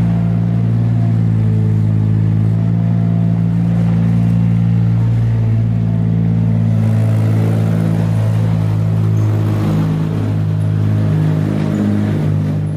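Steady, deep engine-like drone of a vehicle, beginning to fade out near the end.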